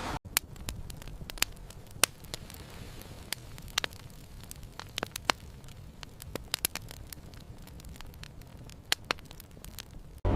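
Irregular sharp crackling pops, several a second, over a faint low hiss, starting and cutting off abruptly.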